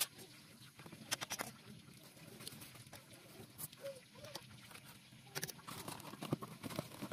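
Scattered light clicks and taps of a wire whisk and utensils against a steel mixing bowl of batter, in small clusters about a second in, past the middle and toward the end.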